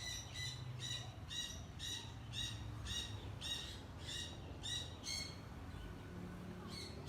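A caged bird calling, a short high call repeated evenly about twice a second, about a dozen times. The calls stop about five seconds in, with one more call near the end.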